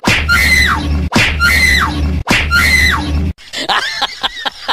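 A short, high scream played three times back to back in exactly the same shape, a dubbed-in sound effect, followed near the end by a quick run of snickering laughter.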